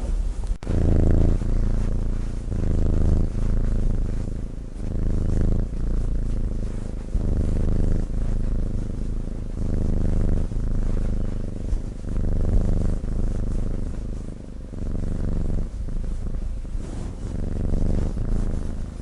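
Sleeping cat snoring: a low rumble that swells and fades with each breath, about once a second.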